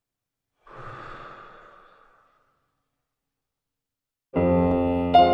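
A soft rushing noise about a second in that fades away within about a second, then music starting near the end with sustained piano chords that change every half second or so.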